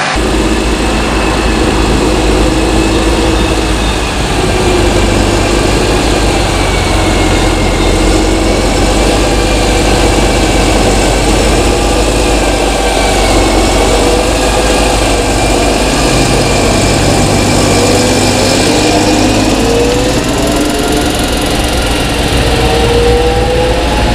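Fendt tractor's diesel engine running as the tractor drives past, with a steady low rumble and a high whine above it. The engine note wavers, then rises in pitch over the last few seconds as it speeds up.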